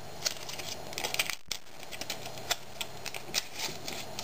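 Thin aluminium pop-can sheet crinkling and ticking in the fingers as a slit strip is bent and fitted together into a ring: a scatter of small, irregular clicks.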